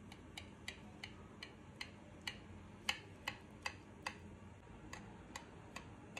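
Knife blade clicking against a glass baking dish while slicing through baked karantika: a run of faint, sharp clicks, about two to three a second and unevenly spaced.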